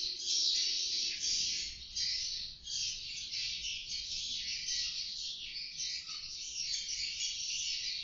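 A roost of edible-nest swiftlets chattering: a dense, continuous high twittering that swells and dips, heard through a CCTV camera's microphone.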